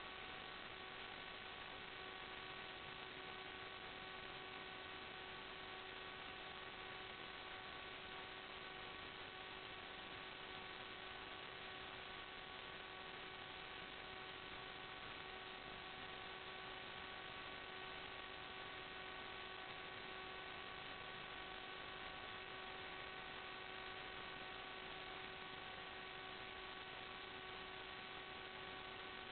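Steady electronic hiss with a constant hum of several fixed thin tones that never change. This is noise in the FPV recording's sound channel, not the sound of the flight.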